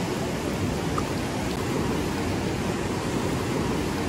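Fast-flowing mountain river rushing over rocks in rapids: a steady, even rush of turbulent water.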